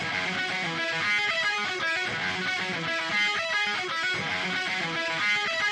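Background music led by guitar, with notes changing in a steady, regular pattern.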